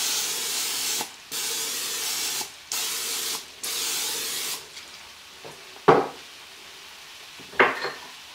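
Aerosol cooking spray hissing from a can into the bottom of a crock pot in four bursts, ending after about four and a half seconds. Two sharp knocks follow, about a second and a half apart.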